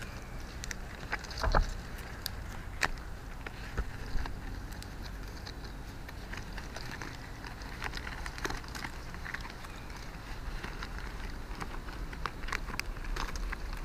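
Fresh green coconut leaflets rustling and crackling as they are folded and tucked by hand: scattered small clicks and scrapes, the loudest about a second and a half in, over a steady low rumble.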